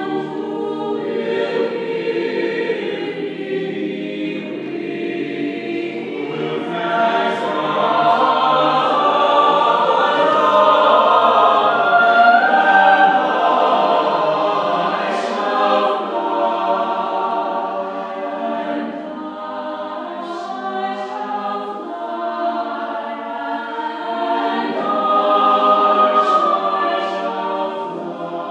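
Mixed chamber choir, women's and men's voices, singing sustained choral harmony. The singing swells louder through the middle, eases off, and swells again near the end.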